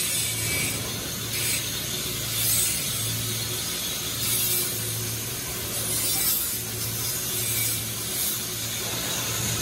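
Hand metalwork on a steel pipe in a fabrication shop: scraping, rasping strokes on the metal over a low machine hum that swells and fades about once a second.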